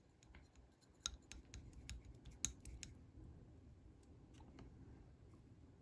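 Clear slime being pressed and stretched by hand, giving a quick run of small sharp clicks and pops, thickest in the middle with one louder pop, then thinning out.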